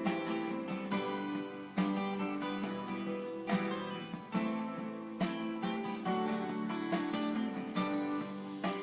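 Acoustic guitar strumming chords in a steady rhythm: an instrumental passage of a folk-pop song with no singing.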